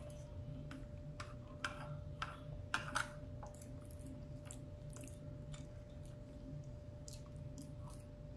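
A plastic fork clicking and scraping against a plate as rice and beans are scooped up, with several sharp clicks in the first three seconds and fainter, sparser ticks after. A steady faint hum runs underneath.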